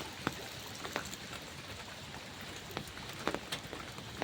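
Steady rain falling, with individual drops striking a surface as irregular sharp taps, several in quick succession a little after three seconds in.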